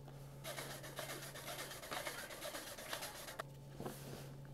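Sifter rattling rapidly as powdered sugar is sifted into the bowl, starting about half a second in and stopping about a second before the end. A steady low hum runs underneath.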